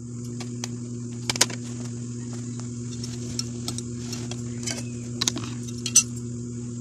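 A steady low electrical hum with a high, even hiss over it, crossed by scattered light clicks and ticks; the sharpest come about a second and a half in and again near the end.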